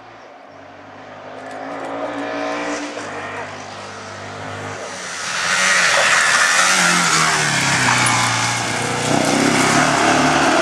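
Ford Escort rally car coming up the stage at full throttle, its engine note rising and stepping through the gears as it closes in. About halfway through it gets loud as the car passes close by, with tyre and road noise.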